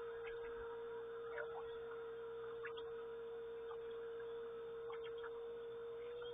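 A steady hum at one pitch, with short faint chirps of small birds every second or two.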